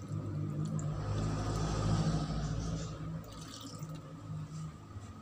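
Coconut milk poured in a stream from a plastic tub into a rice cooker's metal pot of chicken pieces, splashing and gurgling, loudest about two seconds in and trailing off after about three seconds. A steady low hum runs underneath.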